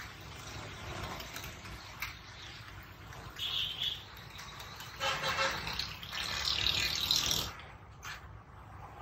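Roadside traffic noise. A short high-pitched tone comes about three and a half seconds in, and a louder rush of noise runs from about five to seven and a half seconds.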